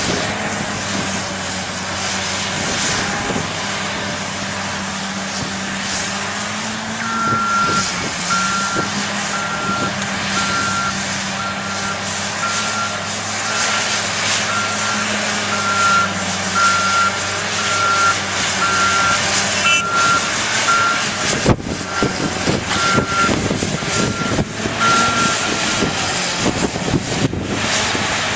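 Caterpillar track loader's diesel engine working, with its backup alarm beeping about once a second for much of the time as it reverses. A few sharp metallic knocks come in the latter part.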